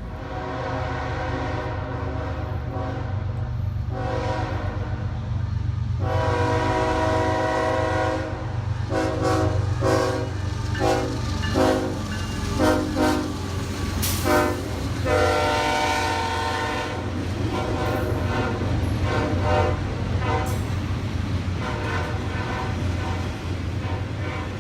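Locomotive multi-chime air horn playing a horn show: long blasts broken by quick runs of short toots, over the steady rumble and rail clatter of the train going by.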